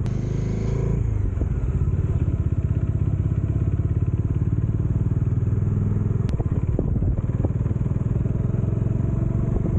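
Motorcycle engine running steadily while riding, a fast even pulsing with its low hum.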